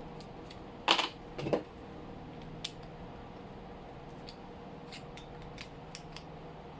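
Small metallic clicks and knocks from handling and tightening the screws of an airsoft gas pistol magazine, with two louder knocks about a second and a second and a half in, then scattered light ticks.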